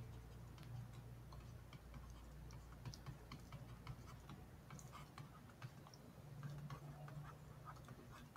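Faint, irregular ticks of a stylus tapping on a tablet screen during handwriting, over a low steady hum.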